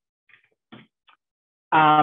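A pause in a man's speech: near silence with a few faint, brief noises, then his voice comes back near the end on a drawn-out word.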